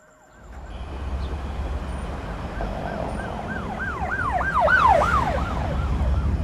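An emergency-vehicle siren in a fast yelp, its pitch rising and falling about three times a second, growing louder toward the middle and then easing off. Under it is a low, steady rumble of street traffic that sets in about half a second in.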